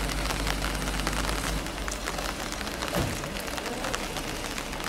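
Rain falling, a dense patter of small drops. A low steady rumble fades out in the first couple of seconds, and there is one soft thump about three seconds in.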